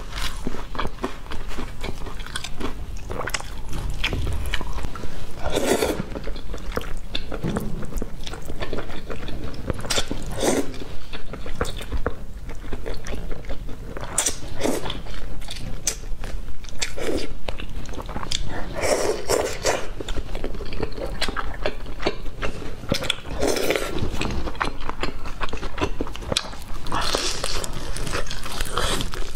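Close-miked eating sounds: crunchy bites and wet chewing of sauced fried chicken, with glass noodles slurped from a bowl of malatang about halfway through. There is a steady stream of small mouth clicks, with a louder bite or slurp every few seconds.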